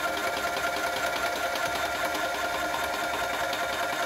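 Graco airless paint sprayer's electric piston pump running steadily while priming: a steady hum with a fast, even chatter.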